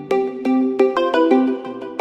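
Smartphone ringtone playing a quick melody of short plucked notes, several a second.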